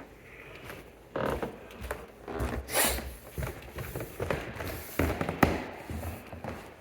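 Irregular handling noises: rubbing and scraping with a few sharp knocks, the sharpest about five seconds in. No vacuum motor is running.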